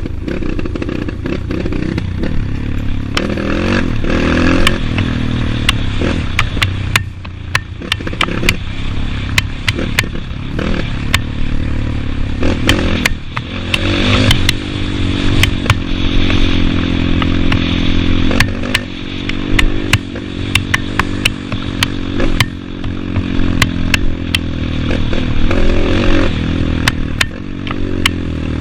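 Trail motorcycle engine running under load on a rough dirt track, its revs rising and falling again and again, with frequent sharp clacks and rattles.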